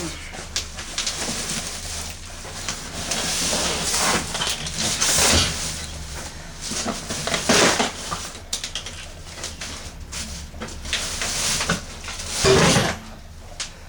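Irregular handling noise from unpacking a boxed benchtop planer: rustling and scraping of packing material with scattered knocks, in uneven swells, the loudest about five, seven and a half and twelve and a half seconds in.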